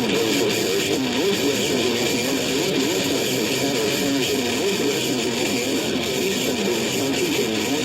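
Guitar music playing over a radio broadcast, under a steady hiss.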